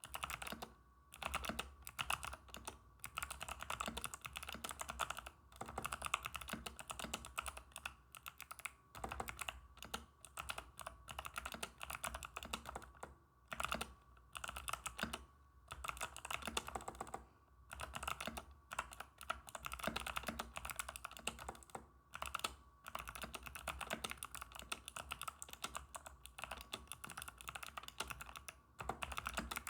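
Typing on a mechanical keyboard with unlubed Kailh Box White clicky switches and custom keycaps: quick runs of crisp clicks, with short pauses between bursts.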